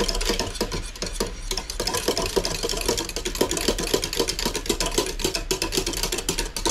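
A utensil whisking an eggnog custard base in a saucepan over the heat, with rapid, rhythmic clinking and scraping strokes against the pan, several a second.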